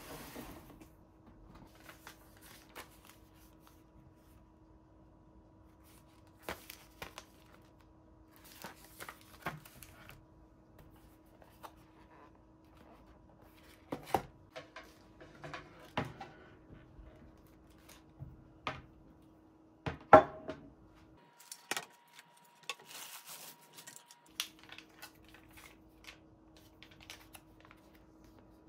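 Scattered clicks, knocks and rustles of objects being handled, the loudest knock a little past the middle, over a faint steady hum.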